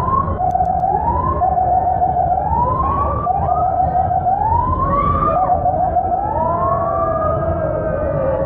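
Fire truck siren sounding in repeated rising sweeps, about one a second, with short held tones between them, then one long, slowly falling tone near the end, over a steady low rumble.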